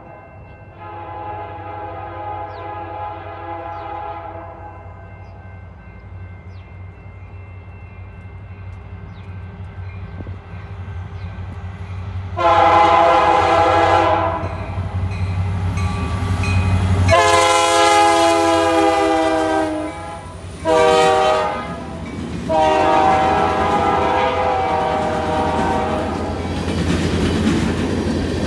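Diesel freight locomotive horn, faint and distant at first, then loud and close: two long blasts, a short one and a long one, the grade-crossing warning pattern, over the low rumble of the approaching locomotive. Near the end the train's empty flatcars roll past with wheels clicking over the rails.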